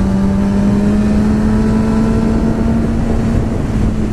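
Suzuki GSX-R sport bike engine running at a steady cruise, its note rising slowly as the bike gently gains speed, with wind rushing on the microphone.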